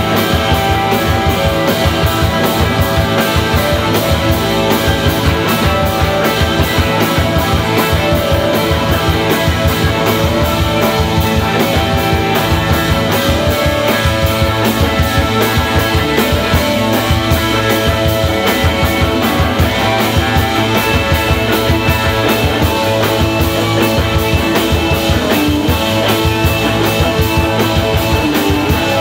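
Live rock band playing loud: electric guitars over a steady drum beat.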